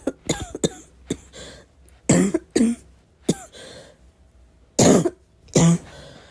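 A person's barking cough, repeated constantly: a string of short, loud coughs, often in pairs, coming every half second to a second or so.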